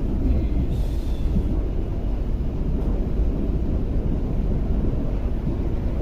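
Train running: a steady low rumble that holds level throughout.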